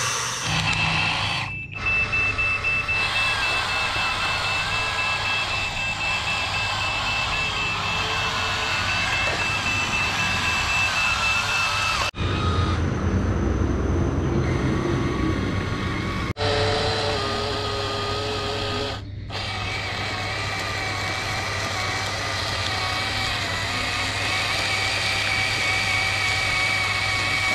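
Remote-control construction models running: motor whine over a steady hum, with a continuous high beeping like a reversing alarm. The sound breaks off abruptly several times at cuts between shots.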